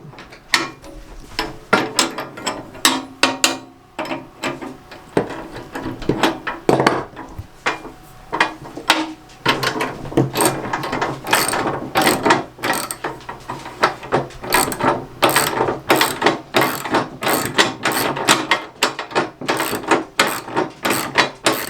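Hand ratchet wrench clicking through repeated back-and-forth strokes as it tightens the plow frame's bolts. The strokes are sparse at first, then come faster and louder from about ten seconds in.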